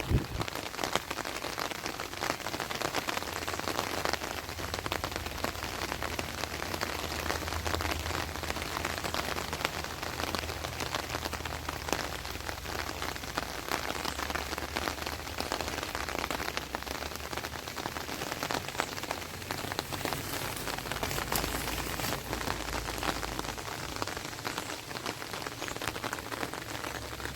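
Steady rain falling, a continuous hiss dense with individual drop hits, over a low rumble.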